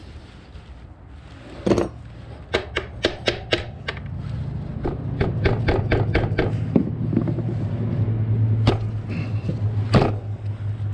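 Hand tools tapping and clicking on a Suzuki DR650's rear-axle chain adjuster: sharp taps and knocks, a quick run of about six in one second, then scattered ones with two louder knocks near the end. Under them a low steady hum builds up from about four seconds in.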